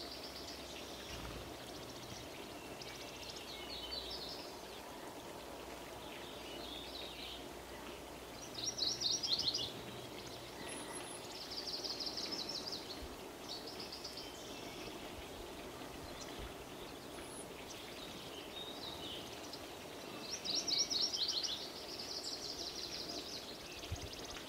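Several songbirds singing over a steady patter of rain. There are repeated high trills and chirped phrases; the loudest rapid trills come about nine seconds in and again near the end.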